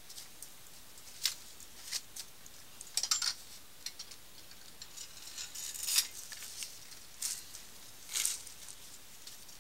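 Sewer inspection camera's push cable being fed off its reel into the cleanout: scattered short scrapes and clicks, with the loudest about three and six seconds in and a longer rasp near the end.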